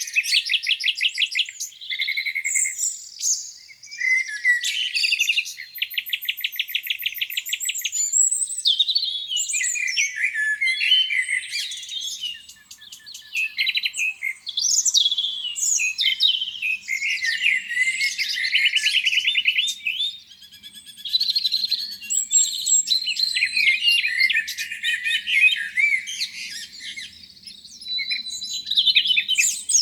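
Several songbirds singing at once in a dawn chorus, calls and phrases overlapping continuously, with fast rattling trills that recur several times.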